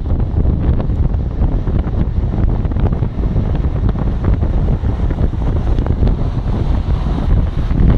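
Loud, gusty wind buffeting a Nokia N8 phone's microphone in a moving car.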